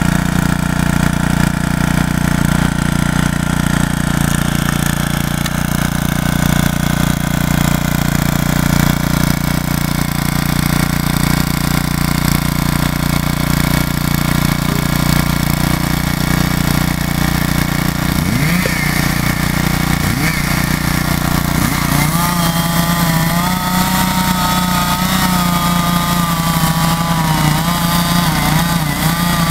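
A small engine running steadily at an even speed. From about two-thirds of the way in, a wavering higher tone sounds over it.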